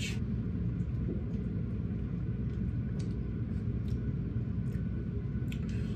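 Steady low hum of room noise, with a couple of faint light ticks.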